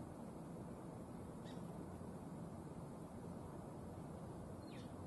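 Outdoor ambience: a steady low background rumble with two short bird calls that fall in pitch, one about a second and a half in and one near the end.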